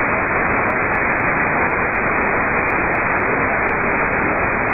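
Steady static hiss from a shortwave radio receiver tuned to the 10-metre amateur band, with no station on the frequency. The hiss is cut off sharply above the narrow sideband audio range.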